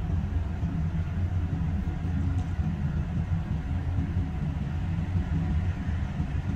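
Steady low rumble with no clear tone or rhythm.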